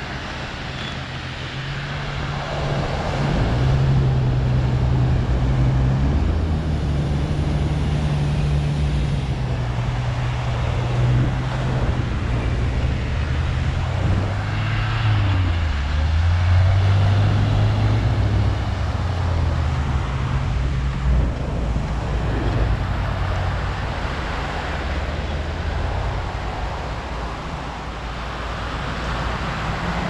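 Jeep Wrangler engine running as the 4x4 drives along the beach through the edge of the surf. The engine note shifts with the throttle and dips and rises again about halfway through, over the wash of the waves.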